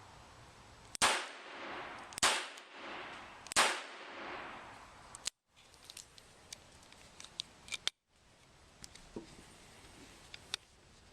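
Three shots from a Colt Police Positive .22 LR revolver, about a second and a quarter apart, each followed by a ringing echo. A few light clicks follow.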